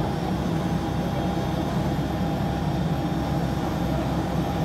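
Steady drone of an airport apron beside a parked Airbus A320: a low rumble with a few faint steady whining tones, the kind of noise made by the aircraft's systems and ground equipment while it stands at the gate.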